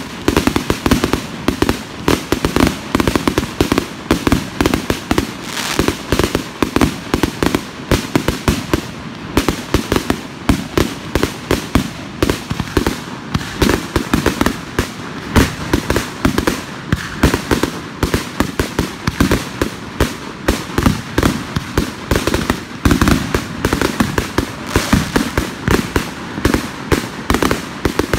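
Aerial fireworks launching and bursting in a rapid, unbroken barrage of bangs and crackles, several a second.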